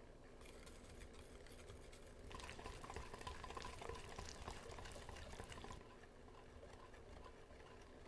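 Faint wet stirring of a batter in a bowl, with a crackly, squelchy texture. It grows louder a little over two seconds in and stops before the end.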